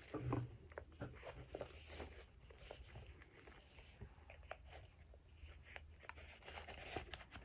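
Faint handling sounds of a leather-look journal and its metal key-shaped pen: scattered small taps, clicks and rustles as the pen is drawn out, turned over and fitted back, over a low steady hum.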